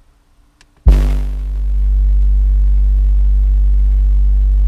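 Car audio subwoofers playing a bass burp: a single steady, very loud low tone near 50 Hz with overtones, starting suddenly about a second in. The high-SPL burp reads about 140 dB inside the car's cabin.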